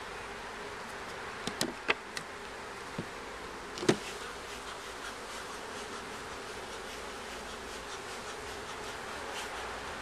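Honey bees buzzing steadily around an open wooden beehive. A few sharp knocks come between about one and a half and four seconds in, the loudest near four seconds, as the hive cover is handled.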